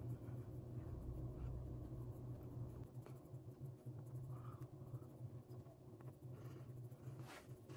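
Fingertips dabbing and rubbing liquid foundation into the skin of the face: faint, soft brushing sounds, a slightly louder one near the end, over a steady low hum.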